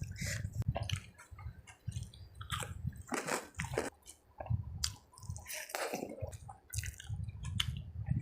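Close-miked chewing of a mouthful of rice and curry: wet, squishy mouth sounds with irregular smacks and clicks.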